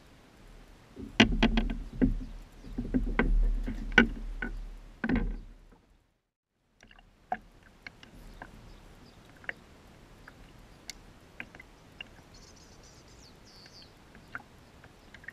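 Gear being handled aboard a plastic fishing kayak: a run of knocks and bumps over a low rumble for about five seconds, then the sound drops out suddenly. Afterwards only faint scattered clicks and taps.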